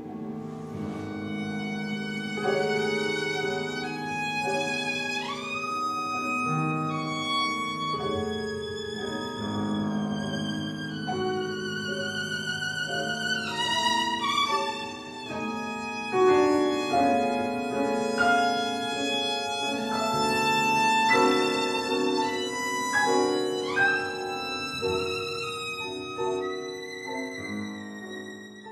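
Violin and piano duo playing classical music: a singing violin line with several upward slides over sustained piano chords. The music fades out near the end.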